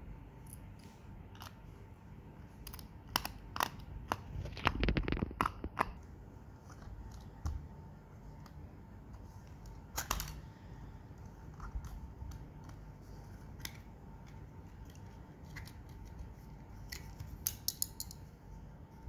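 Sharp plastic clicks and scrapes of a Miniso wireless mouse's casing being handled and opened up. The clicks come in a busy cluster about three to six seconds in, a single sharp one near ten seconds, and a quick run near the end.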